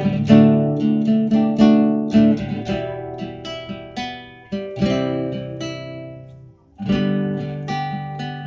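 Cypruse custom cutaway classical guitar with nylon strings, fingerpicked: plucked notes and chords ringing out. The playing stops for a moment about two-thirds of the way through, then starts again.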